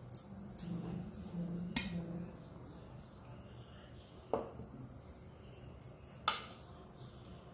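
A few sharp light clicks and knocks of kitchen things being handled, four spread over the seconds, the loudest near the end.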